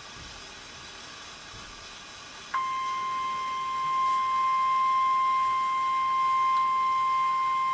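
Steady radio hiss, then about two and a half seconds in a loud, single-pitch alert tone cuts in and holds steady: the NOAA Weather Radio 1050 Hz warning alarm tone, which signals that a warning message follows.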